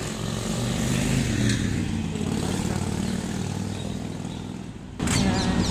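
Road traffic: a passing motor vehicle's engine hum, swelling over the first second or so and then slowly fading. It cuts off suddenly near the end.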